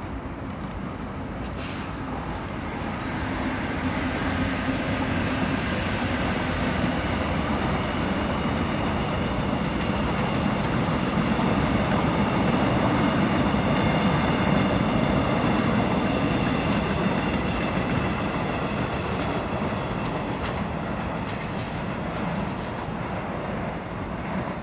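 Train running past on the tracks below, its rumble of wheels on rail building to its loudest about halfway through and then slowly easing off, with a faint high whine over it.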